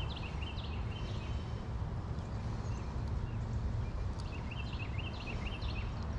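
A bird chirping in two quick runs of short, sweeping notes, one at the start and another about four seconds in, over a steady low outdoor rumble.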